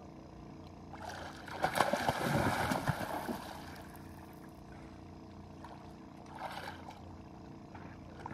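A hooked fish thrashing and splashing at the water's surface as it is reeled in to the bank. The splashing is loudest for about three seconds starting a second in, with a shorter splash near the end.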